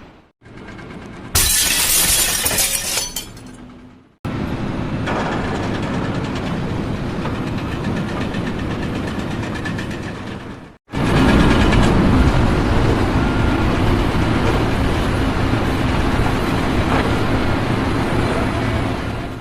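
A sudden loud crash with shattering, fading over a couple of seconds, then steady mechanical rumbling noise that grows louder after a sharp break.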